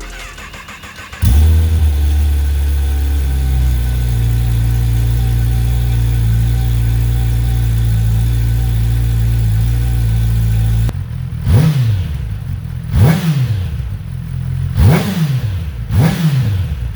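2020 Kawasaki ZX-10R's inline-four engine breathing through an Austin Racing GP1R aftermarket exhaust. It comes in suddenly a little over a second in and runs at a steady engine speed. From about eleven seconds in it is blipped five times, each rev rising and falling quickly, about a second and a half apart.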